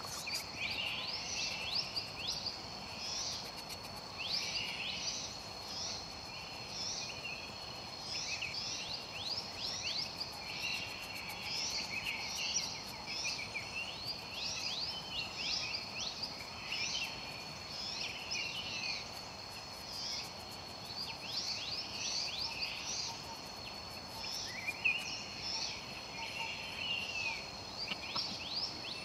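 Forest ambience: birds chirping over and over with quick sweeping calls, over a steady high-pitched insect drone.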